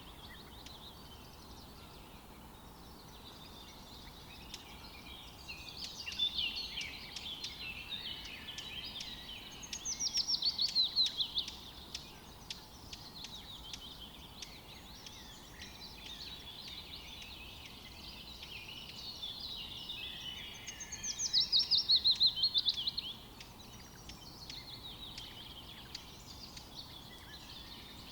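Small songbirds chirping and twittering continually. Twice, about ten seconds apart, a louder fast trill of rapidly repeated notes falls in pitch over a second or two.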